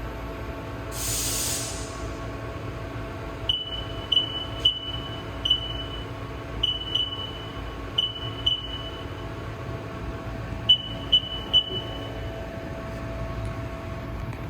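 Haas TL-1 CNC lathe humming steadily, with a short hiss about a second in. A few seconds in come about eleven short, identical high beeps in small groups, each with a click at its start: the control panel's keypad beeping as keys are pressed.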